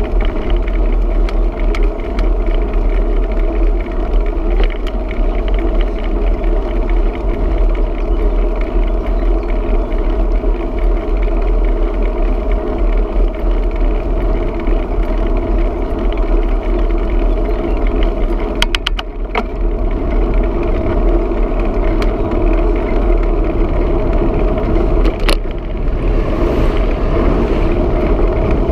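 Wind and road noise on a bicycle-mounted camera while riding: a loud, steady low rumble with a constant hum. A quick run of sharp clicks comes about two-thirds of the way through, and a single click a few seconds later.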